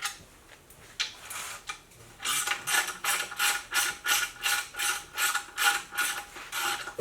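Hand ratchet wrench clicking in quick, even strokes, about four a second, as a bolt is turned; it starts about two seconds in after a single scrape.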